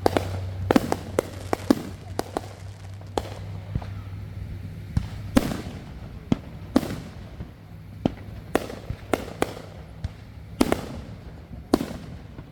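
Fireworks going off in a string of sharp bangs at irregular intervals, about a dozen and a half in all, some quicker together in the first few seconds and the heavier single reports spaced out later.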